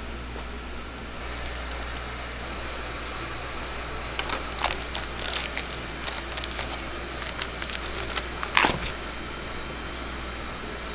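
Hot oil sizzling around deep-frying fish cakes, then a plastic wrapper crackling and crinkling as it is peeled off a block of fish paste: a string of sharp crackles over several seconds, the loudest near the end, over a steady low hum.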